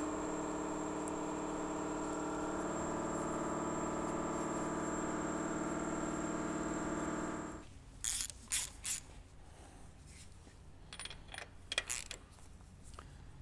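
A steady many-toned machine drone that cuts off abruptly about seven and a half seconds in, followed by a few light metallic clinks and knocks of a wrench working on an aircraft engine as the spark plug leads are taken off.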